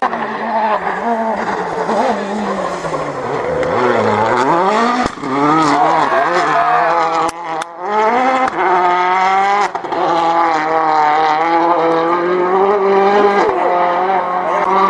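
Rally car engine working hard through a hairpin. The note drops as the car brakes and downshifts about four seconds in, then climbs in repeated rising sweeps through the gears, with short breaks at the gear changes, and holds high near the end.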